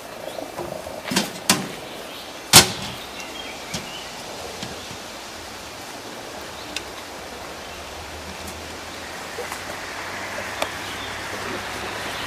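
Two sharp knocks about a second in, then a single loud, sharp bang about two and a half seconds in, with a few faint ticks afterward over steady outdoor background noise.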